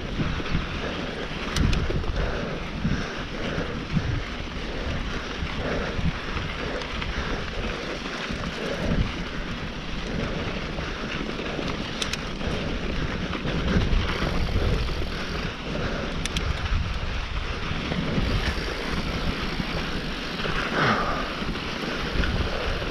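Wind buffeting the microphone of a mountain bike being ridden down a dirt trail, with rolling tyre noise and a few sharp clicks and rattles.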